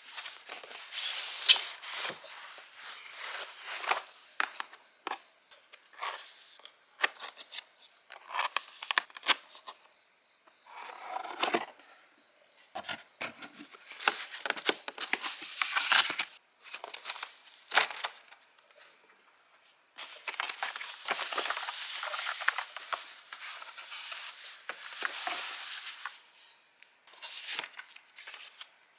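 Keyboard box packaging being handled and opened: irregular rustling, crinkling and tearing with sharp clicks, coming in stop-start bursts separated by short pauses.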